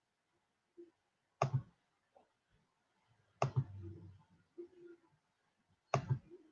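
Three sharp double knocks, about two seconds apart, each with a deep thud under it, and a few faint short low tones between them.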